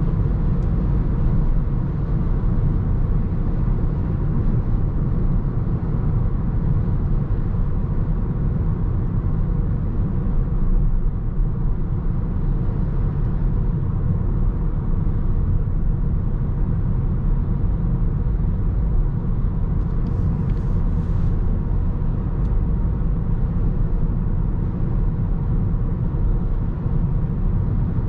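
In-cabin noise of a Toyota Corolla Touring Sports 2.0 Hybrid cruising at high speed on the autobahn: a steady low rumble of its 2.0-litre four-cylinder petrol engine with tyre and wind noise, heard from inside the car. A few faint clicks come briefly about twenty seconds in.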